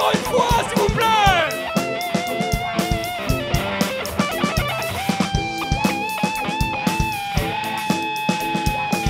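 Live rock band with an electric guitar solo over drums and bass: about a second in a lead note slides down in pitch, then the guitar holds long notes with vibrato while the drums keep a steady beat.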